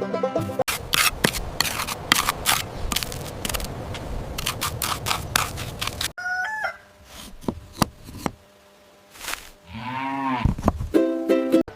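About five seconds of rapid clattering and tapping, then a quieter stretch of farm-animal calls, with one loud call rising and falling in pitch near the end.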